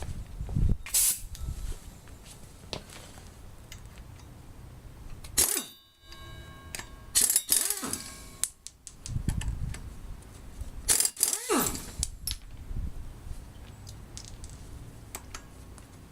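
Air impact wrench fired in a few short bursts to loosen the 12-point bolts holding the flex plate to the crankshaft of a Honda D16Y8 engine, with metallic clinks and a brief ringing of metal between bursts.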